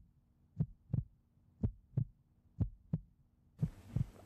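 Heartbeat sound effect: low double thumps, lub-dub, repeating steadily about once a second. Near the end a faint hiss of room sound comes in under it.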